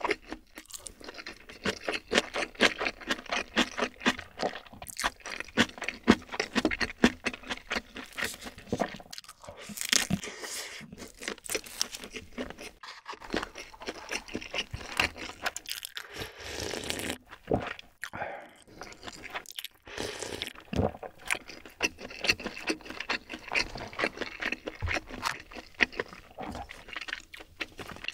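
Close-miked chewing and crunching of food, with many quick crisp crunches and wet mouth clicks and a few brief pauses.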